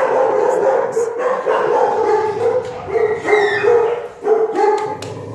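Many shelter dogs barking and yelping over one another, an unbroken din of overlapping barks.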